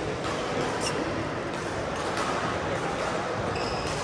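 Badminton rally in a large hall: sharp racket strikes on the shuttlecock every half second to a second, with a brief shoe squeak near the end, over a murmur of background voices.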